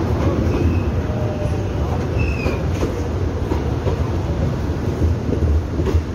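Line 1 electric commuter train rolling slowly alongside the platform as it pulls in, with a steady low rumble and clacking from the wheels. Brief high squeals come twice in the first few seconds.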